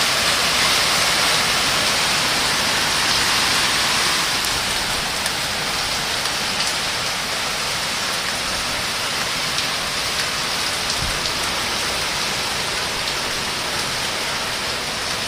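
Heavy hurricane rain pouring down and drumming on surfaces in a steady, dense hiss, easing slightly after about four seconds.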